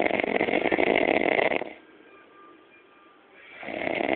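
A man snoring loudly with a rattling snore that stops about a second and a half in. After a short pause the next snore builds up near the end.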